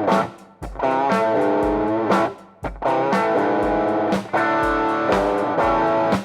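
Hardtail Korina-bodied S-type electric guitar played through a driven amp: held chords ring for about two seconds at a time, each cut short before the next is struck.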